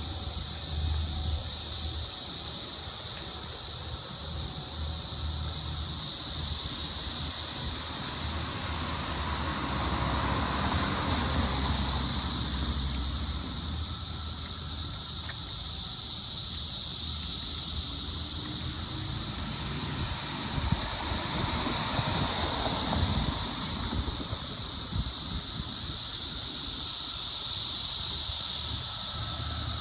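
Outdoor street ambience dominated by a steady, high-pitched droning hiss that slowly swells and fades, over a low rumble of wind or distant traffic; twice a broader rushing sound rises and falls, like a vehicle passing.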